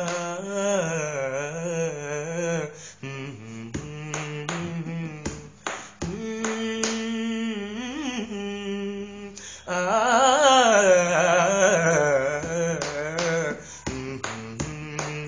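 A man singing a wordless melodic phrase unaccompanied, his voice held and wavering up and down in pitch, loudest and highest about two-thirds of the way through. Short sharp clicks keep time under the singing.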